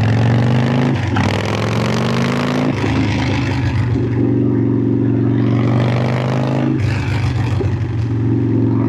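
Harley-Davidson V-twin motorcycle engine accelerating through the gears: the pitch rises and drops back at shifts about one second and nearly three seconds in, then holds a steady note while cruising, with another shift near seven seconds.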